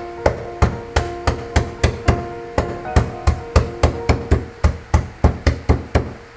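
Stone pestle pounding lemongrass stalks on a plastic cutting board to bruise them, about twenty dull knocks at three to four a second, with a brief pause about two seconds in; the pounding stops about six seconds in.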